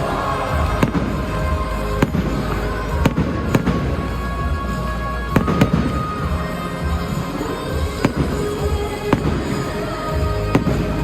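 Fireworks bursting in single sharp bangs, one every second or two, sometimes two in quick succession, over music playing throughout.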